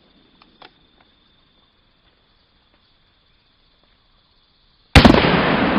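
A single shot from a Smith & Wesson 500 Magnum revolver near the end: a sudden, very loud crack followed by a long echo that fades slowly. Before it there is a faint, steady, high insect drone and a few faint clicks.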